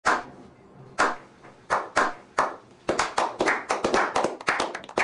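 A slow clap: single hand claps a second or less apart, then more people join and the clapping speeds up into steady applause from a small group.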